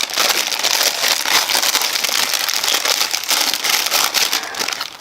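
Homemade slime full of foam beads being squeezed and kneaded by hand, giving a dense, continuous crackling and popping that eases off near the end.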